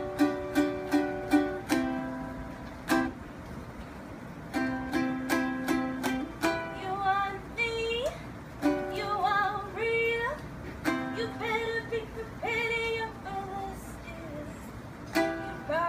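Unamplified ukulele strummed in chords, then a woman singing over it from about six or seven seconds in.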